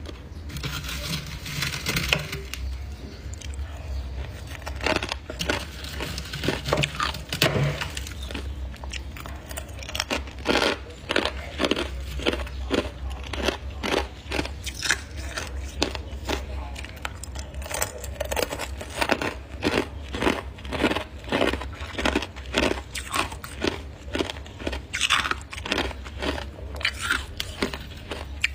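Rhythmic crunching, short strokes about two a second, over a steady low hum.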